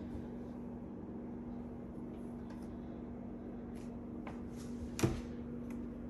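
Kitchen cabinet doors being opened and closed by hand: a few light clicks and one sharper knock about five seconds in. Under them runs a steady low hum.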